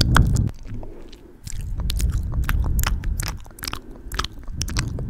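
Wet ASMR mouth sounds right at the microphone, with hands cupped around the grille: many irregular lip and tongue clicks and smacks over a low rumble.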